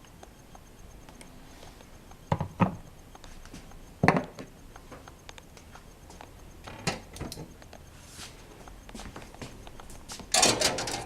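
Several separate knocks of hard objects being handled, then a louder clatter and scrape near the end.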